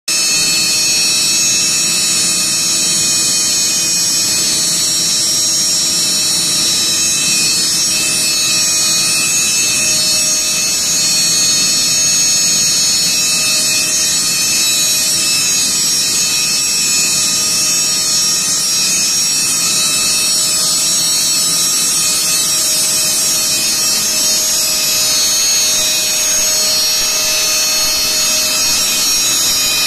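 DENAIR DWW 185 oil-free air compressor running steadily under test: a loud, even machine noise, with a high-pitched whine over a hiss.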